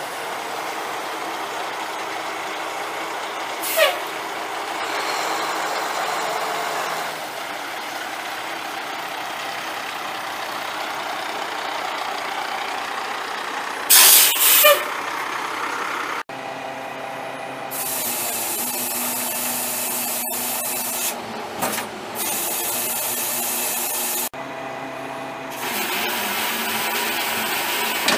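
The Cummins ISC 8.3 L inline-six diesel of a 1998 Ford L8000 refuse truck running steadily, with hisses of released air: a brief one about four seconds in and a louder one lasting about a second near the middle. About two-thirds of the way through, the sound cuts abruptly to a brighter, steadier running noise broken by a few short breaks.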